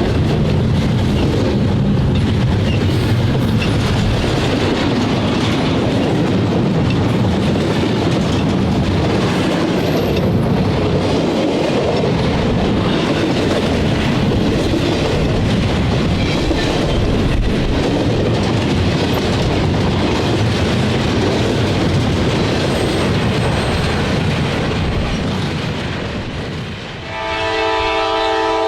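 Freight train rolling past at speed, a steady rumble of wheels over the rails with clickety-clack. Near the end, a locomotive air horn sounds a held chord of several notes.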